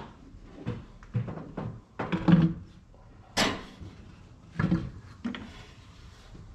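Knocks and clunks of a composite LS1 intake manifold with its throttle body being handled and set onto the engine: a string of separate thuds, the loudest about two and three and a half seconds in.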